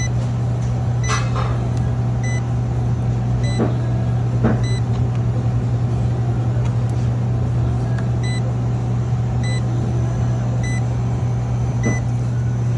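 Steady low machine hum with a short, high electronic beep repeating about once a second, which pauses for a few seconds midway.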